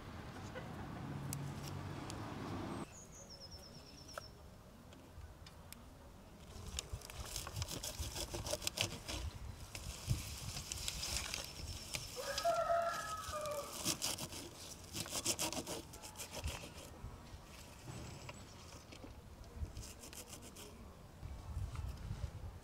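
A rooster crows once, about twelve seconds in, over a run of crisp clicks and rustles from wild greens being trimmed and sorted on a metal pan.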